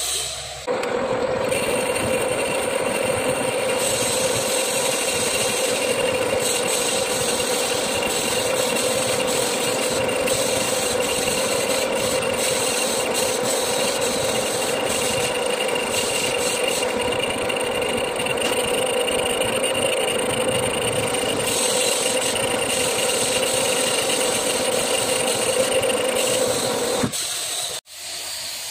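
Metal lathe running with a boring bar cutting inside the bore of a steel final drive part: a steady machining noise with a held hum and a thin high whine. It starts about a second in and stops shortly before the end.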